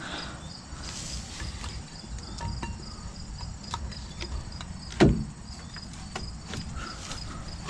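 Crickets chirping steadily in the background, with scattered light metal clicks and one louder clunk about five seconds in as a brake caliper is worked back over the rotor.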